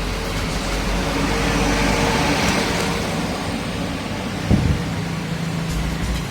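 A road vehicle passing by: a swell of noise that rises and fades around the middle, over a steady low hum, with a single knock about two-thirds of the way in.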